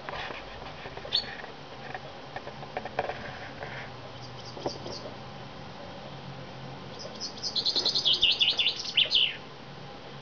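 Common chaffinch singing: a few faint scattered chirps, then about seven seconds in a loud song of quick notes falling in pitch over about two seconds, ending in a final flourish.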